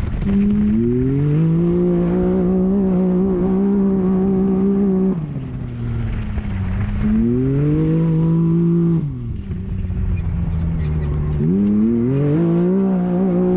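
Off-road race vehicle's engine heard onboard at full throttle. The revs climb quickly and hold steady, fall away briefly as the throttle is lifted about five seconds in and again about nine seconds in, then climb and hold again, over steady wind and driving noise.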